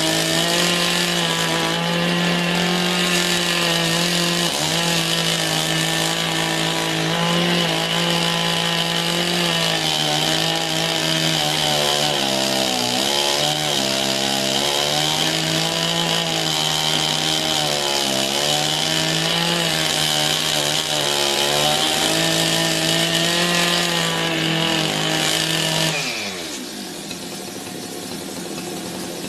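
Petrol two-stroke chainsaw running at high revs while sawing through a log, its pitch dipping and wavering as it takes the load. Near the end the revs fall away and it runs more quietly.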